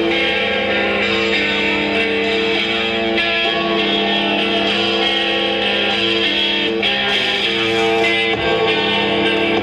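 Background rock music led by strummed electric guitar.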